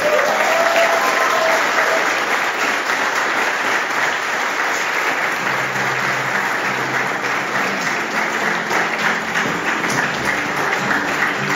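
Wedding guests applauding steadily. Music starts up underneath the applause about halfway through.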